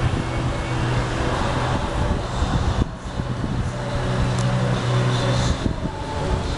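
A steady low mechanical hum, like a running engine, over outdoor traffic noise.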